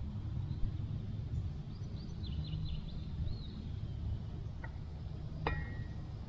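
Outdoor ambience: a low steady rumble, a quick run of small high bird chirps about two to three seconds in, and two light clicks near the end, the second with a brief ring.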